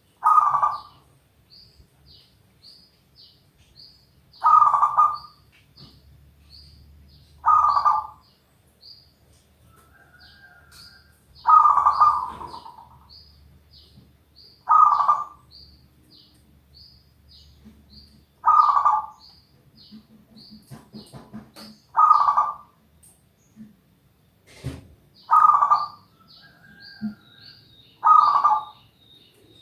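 Zebra dove (perkutut) cooing over and over: nine loud, rolling coo phrases, one every three to four seconds, the bird singing steadily.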